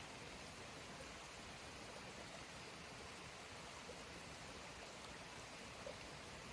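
Faint, steady rush of a forest stream running, with a couple of soft ticks about four and six seconds in.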